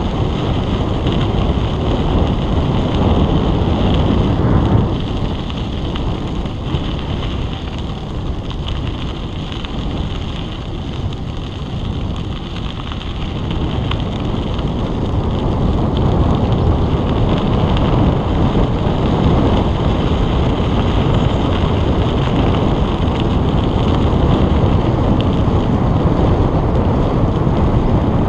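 Wind rushing over a GoPro's microphone on a moving bicycle: a loud, steady buffeting rush that eases for several seconds a few seconds in, then builds again.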